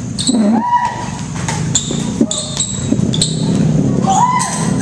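Badminton rackets striking the shuttlecock during a rally: a string of sharp pings, each with a brief ring of the strings, roughly one every half-second to second.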